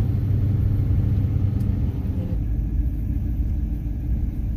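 Steady low engine and road rumble inside the cab of a pickup truck towing a trailer. About two seconds in, the engine hum fades as the truck slows, leaving the road rumble.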